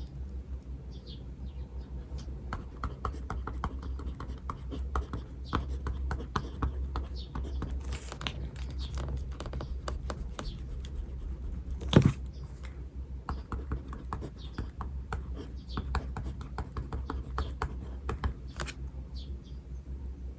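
Runs of quick light clicks and taps from desk work, like keyboard typing or pen on paper, with one loud knock about twelve seconds in, over a steady low hum.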